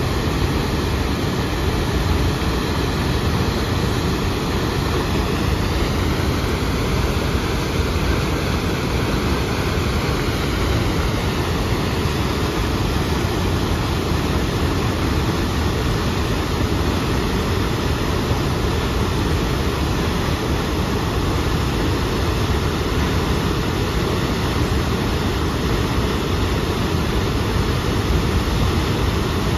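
Loud, steady rush of the Upper Tahquamenon Falls, a wide waterfall pouring over a rock ledge, heaviest in the low end and unchanging throughout.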